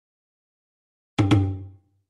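Silence, then about a second in a short percussive transition hit: two quick strikes with a deep pitched ring that fades within about half a second.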